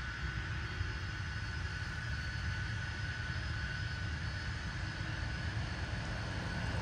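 Jet airliner engines: a steady low rumble with a thin steady whine above it.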